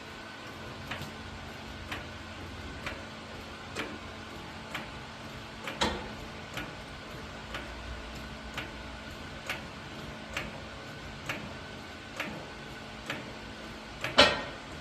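Even ticking about once a second, with a louder knock about six seconds in and a sharper, louder knock near the end, over a steady low hum.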